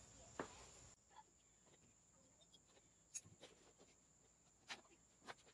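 Near silence with a few faint, short clicks and taps from hand work taking the carburetor off a 125cc dirt bike engine.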